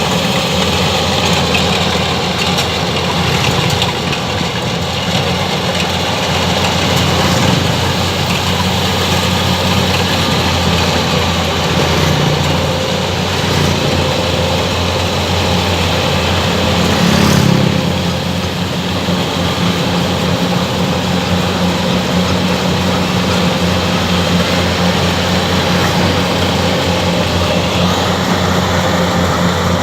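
Rice combine harvester's engine running steadily as the machine harvests, with a brief swell in loudness a little over halfway through.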